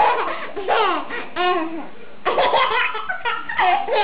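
A baby laughing in a string of short bursts, with a brief pause about halfway through.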